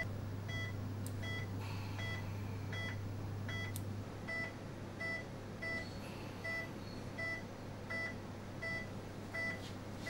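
Intensive-care bedside patient monitor sounding its pulse tone: a short, even beep about every three-quarters of a second, one for each heartbeat. Under it runs a low, steady equipment hum that drops slightly about four seconds in.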